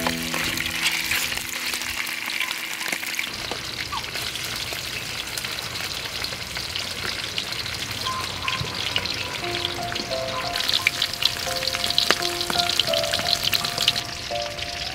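Food frying in hot oil in a wok, a steady crackling sizzle that grows stronger a little past the middle. Notes of background music sound over it.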